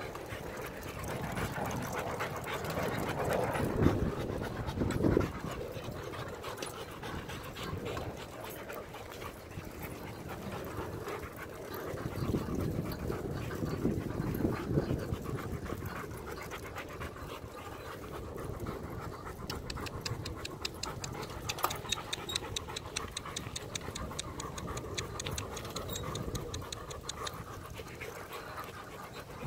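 German Shepherd panting as it runs alongside a moving bicycle, over the steady rushing noise of the ride. A fast, even ticking joins in past the halfway point.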